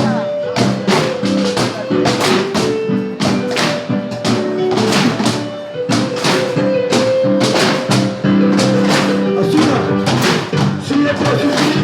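Live ensemble music from percussion instruments made of recycled cans, struck in a steady rhythmic beat under a pitched melody line.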